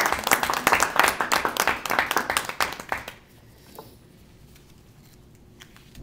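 A small group applauding with brisk hand claps, which die away about three seconds in, leaving a quiet room.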